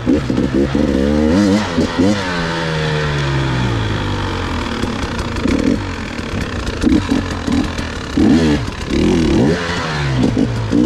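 Two-stroke enduro motorcycle being ridden, its engine revving up and dropping back again and again as the throttle is opened and closed.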